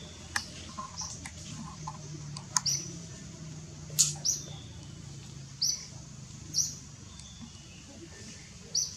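Short high bird chirps, several spaced a second or more apart, with a few sharp clicks and rattles as a macaque grips and climbs a chain-link fence.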